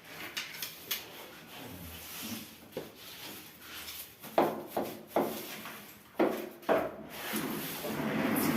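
Rubbing and scraping of a clean-up on a kitchen worktop, with several sharp knocks, most of them in the middle of the stretch. A longer scraping sound builds near the end.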